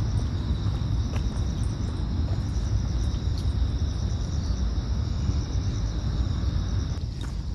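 Steady chorus of insects, crickets or similar, chirping in a continuous high band, over a low rumble of wind on the microphone.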